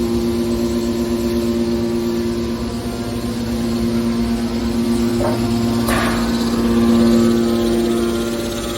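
Metal shear baler's machinery running with a steady hum. Two brief sharp metallic sounds come about five and six seconds in.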